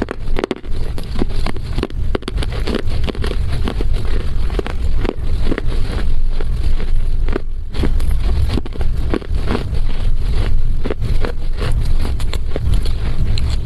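Close-miked chewing of Chinese loess clay: dense, irregular crunches and crackles over a strong low rumble.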